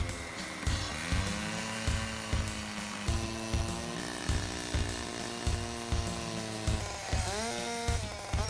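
Background music with a steady beat, laid over a 14-inch gas cut-off saw with a diamond blade running at speed as it cuts through a precast concrete panel. Near the end the saw's pitch rises and falls quickly a few times.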